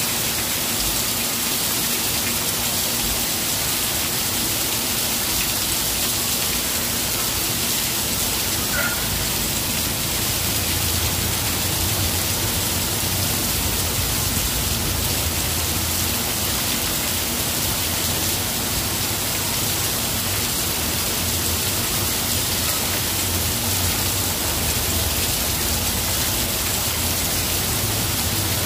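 Heavy rain pouring onto a street and pavement, a steady hiss. A low hum joins it about ten seconds in.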